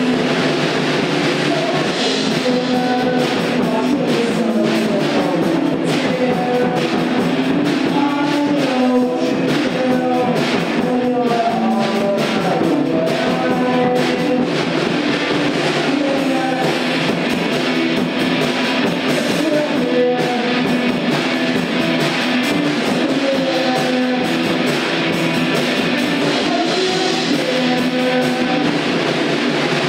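Rock band playing: guitar chords over a drum kit.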